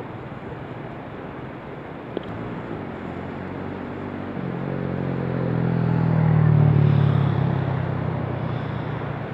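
A motor vehicle's engine passing close by, swelling over about two seconds to a peak roughly two-thirds of the way through, then fading. Under it, the steady rush of a fast, shallow river over rocks.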